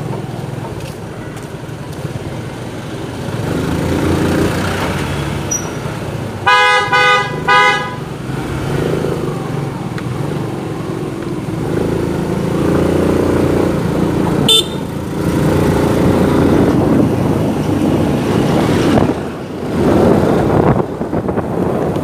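Motor scooter riding in city traffic: its small engine running under wind on the microphone. A vehicle horn honks twice in quick succession about six and a half seconds in, and a brief sharp click comes about halfway through.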